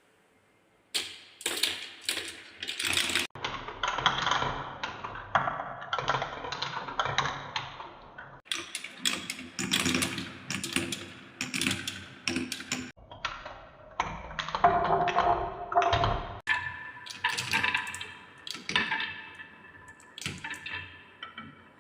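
Balls rolling and clattering down a wooden marble run: rapid clicks and knocks, some with a short ringing tone, in several cut-together runs after a near-silent first second.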